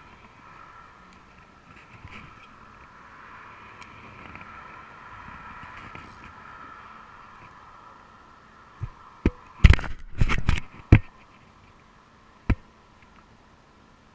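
Muffled sound through a waterproof camera housing: a faint steady hum, then a cluster of loud knocks and taps about nine to eleven seconds in and one more knock a second and a half later, typical of the housing being bumped while a fishing rod and reel are handled.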